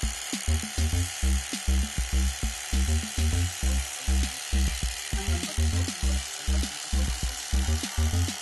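Background music with a steady bass beat over the steady rasping hiss of an electric kitchen knife's reciprocating serrated blades sawing through open-cell cushion foam.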